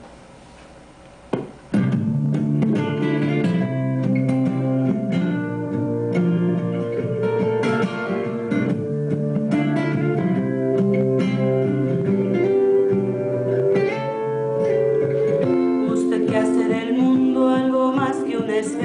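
Guitar-led instrumental backing music, starting suddenly just under two seconds in after a click, with a faint steady hum before it.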